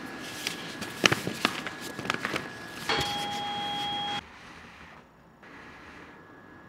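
Factory floor sounds: a scatter of sharp clicks and knocks, then a steady electronic beep from a machine for just over a second that stops abruptly, leaving a quiet background hum.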